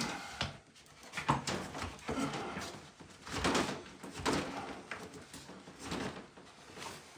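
Wrapped mini-split line set being pushed through a hole in the wall: a series of short rubbing and scraping strokes, about five, with pauses between them.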